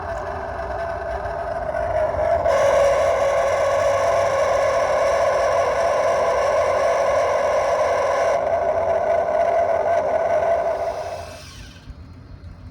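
Normal water flow through a buried pipe, picked up by an acoustic leak detector's microphone: a steady rushing noise with a hum in it. It turns louder and brighter about two and a half seconds in, dulls near eight seconds, and drops away about eleven seconds in.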